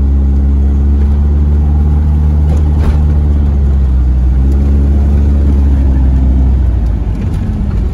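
A car driving at a steady speed, heard from inside the cabin: a loud, steady low rumble of engine and road noise that eases off about seven seconds in.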